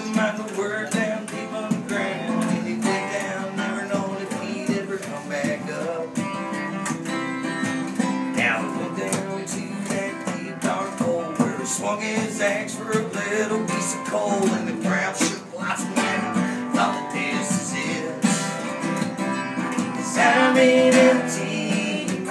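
Music led by a strummed acoustic guitar, playing steadily throughout.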